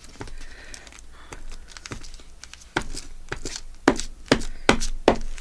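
Paper crafting materials being handled at a work table: crinkling and rustling of paper, then a series of sharp taps and clicks through the second half.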